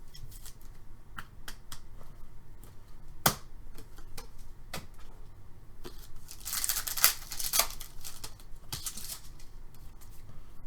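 Trading card packs being handled and opened: scattered light clicks and taps, a sharper snap about three seconds in, and crinkling tear bursts about six to eight seconds in and again near nine seconds.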